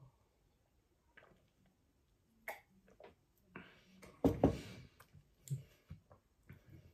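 Quiet eating and drinking sounds: soft mouth clicks and swallows after a drink of cola from a glass. One louder, noisy burst of breath or handling about four seconds in, then a few light clicks.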